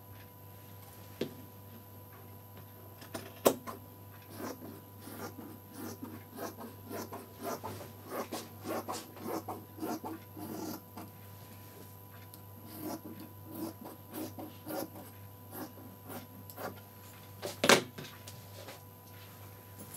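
Dressmaking shears cutting through lined chiffon: a long run of short, irregular snips and fabric rustle with a brief pause in the middle. There is a sharp knock about three and a half seconds in, and a louder knock near the end as the shears are set down on the table, over a faint steady hum.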